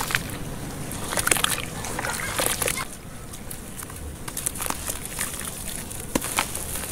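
Hands crumbling and squeezing water-soaked chunks of sand-cement and charcoal: a run of gritty crackles and sharp little snaps, with wet squishing and sloshing.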